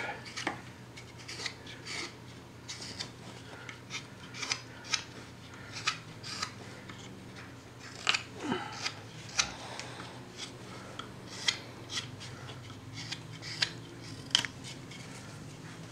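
Small upsweep carving knife shaving wood off a hand-held carving: a string of short, crisp slicing cuts at irregular intervals, several a few seconds apart.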